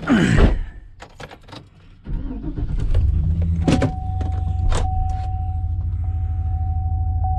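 Chevrolet Suburban's V8 engine started about two seconds in, catching quickly and settling into a steady idle, heard from inside the cab. Before it, a short loud sound at the very start and a few light clicks; a steady high tone comes in with the idle.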